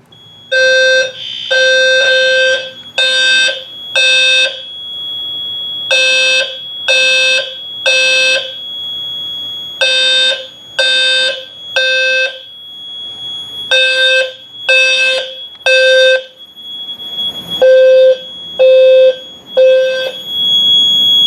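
Fire alarm horn sounding in groups of three loud pulses with a short pause between groups, the temporal-three evacuation pattern, with a steady high-pitched tone underneath. It is the sign that the Notifier fire alarm system has gone into alarm after a smoke detector test.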